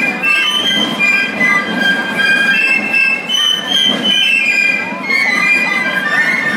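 Basel Fasnacht piccolos (Piccolos) played by a marching clique, a shrill march melody in held high notes stepping from pitch to pitch, over a dense low rumble of Basel drums and crowd.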